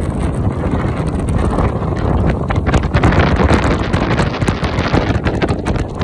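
Wind buffeting the microphone of a phone carried on a moving motorbike, a loud steady rush with gusty flutters, over low road and engine noise.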